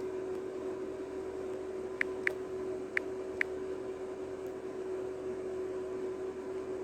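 Steady background hum and hiss, with four faint short clicks a little after two seconds in.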